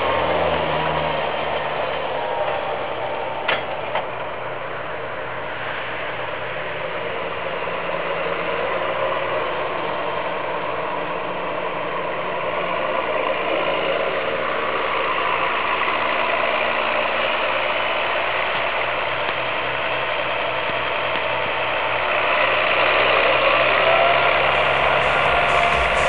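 John Deere 7810 tractor's six-cylinder diesel working under load, pulling a power harrow and seed drill, with the steady clatter of the harrow's gears and tines and a faint whistle from the engine. A single sharp click comes a few seconds in, and the sound grows louder near the end.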